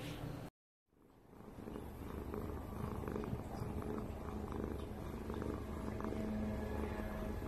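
Tortoiseshell cat purring steadily at close range, fading in about a second in after a brief dead gap at a cut.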